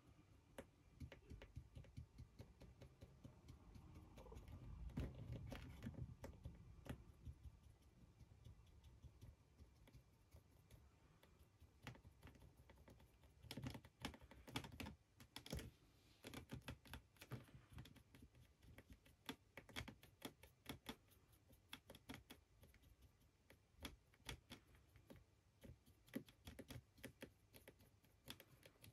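Faint, irregular light clicks and taps as a small paintbrush works paint onto a 3D-printed figure held in the hand.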